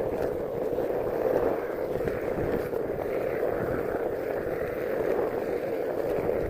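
Steady rushing noise of a Onewheel electric board riding along a rain-wet street: the tyre rolling over wet pavement.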